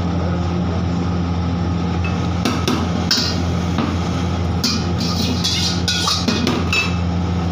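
Metal ladle clinking and scraping against a large iron wok several times from about two and a half seconds in, over oil heating in the wok. A strong gas wok burner keeps up a steady low hum underneath.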